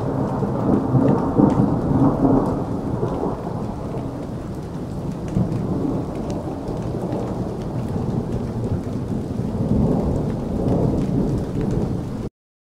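Steady rain with low rolling thunder swelling and fading, a thunderstorm soundscape that cuts off abruptly near the end.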